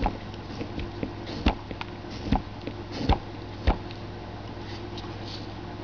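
Carving knife cutting into a wood block, giving about five short, sharp snaps as chips come away over the first four seconds, over a steady low hum.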